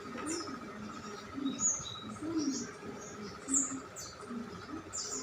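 Birds chirping repeatedly in short high notes, mixed with low rising-and-falling cooing notes about once a second, over a faint steady high hum.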